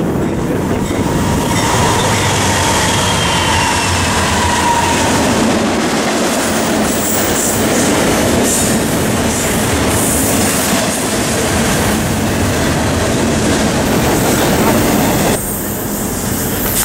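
Freight train cars rolling past on the rails: a steady loud rumble of wheels on track with clickety-clack, and a faint wheel squeal gliding in pitch during the first few seconds. The noise drops somewhat shortly before the end.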